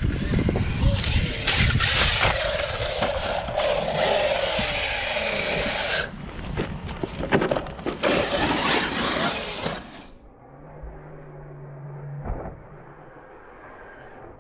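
Traxxas UDR radio-controlled desert truck driving hard off-road under electric power: a loud rough rush of tyre and drivetrain noise, with motor whines that rise and fall as the throttle changes. About ten seconds in it drops to a quieter, duller sound with a low steady hum and one knock near the end.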